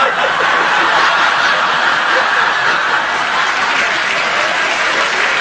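Studio audience laughing and clapping in a steady wash of crowd noise at a fluffed line.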